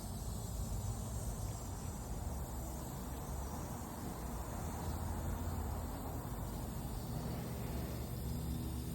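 Pickup truck engine running steadily with a low rumble, with crickets chirping in the background.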